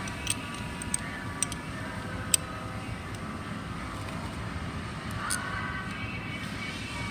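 Small metal parts and tools clicking and tapping as they are handled during clamp assembly: a few short sharp clicks in the first couple of seconds and one more near the middle, over a steady background hum.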